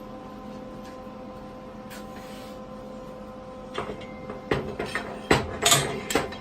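A clamp being loosened and moved on a tacked metal frame: a cluster of sharp metallic clicks and clanks starting about four seconds in, over a steady hum.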